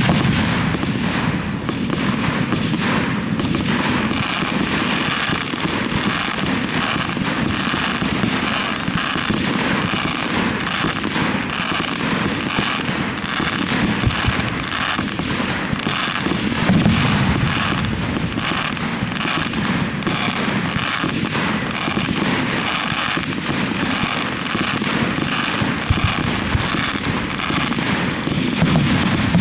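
Fireworks display: a dense, continuous crackling of many small bursts, with a few deeper booms standing out.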